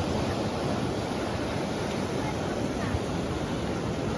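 Steady rush of ocean surf mixed with wind, an even noise with no distinct breaks or strokes.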